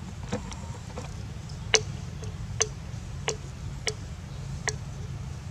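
Baby monkey sucking milk from a plastic bottle: a series of sharp clicks, about one every second, with the loudest a little under two seconds in.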